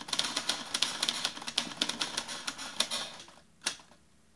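Typewriter keys striking in a quick, irregular run that stops about three seconds in, followed by one last single strike.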